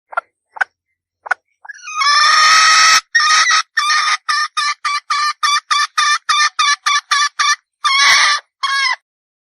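Red junglefowl hen calling: a few short notes, then one long loud call, then a rapid run of about a dozen short clucks at roughly three a second, ending on two longer notes.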